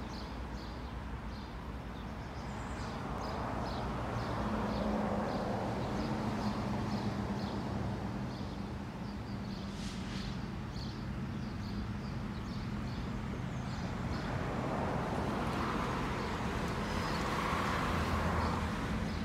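An approaching EMD diesel locomotive, still out of sight, running with a steady low engine hum that grows slightly louder near the end. High, regularly repeated chirps run over it.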